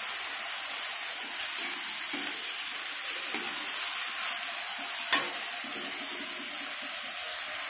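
Mustard greens and tomato sizzling steadily in hot mustard oil in a metal kadhai while a steel spatula stirs and scrapes them, with two sharp clinks of the spatula against the pan about three and five seconds in.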